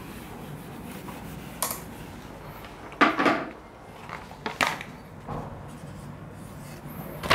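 Whiteboard being wiped clean with a duster and cloth: steady rubbing broken by several short knocks and clatters, then a marker squeaking briefly on the board near the end.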